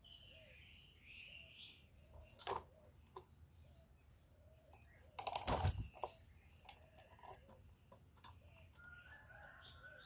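Caged spotted dove shuffling and clicking about its wire cage, with one loud flutter about five seconds in as it hops onto a plastic feed cup. Faint chirps of small birds sound in the background throughout.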